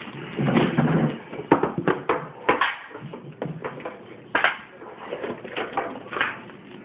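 Plastic shrink wrap crinkling as it is pulled off a metal Yu-Gi-Oh! card tin, mixed with sharp clicks and clanks of the tin and its lid being handled.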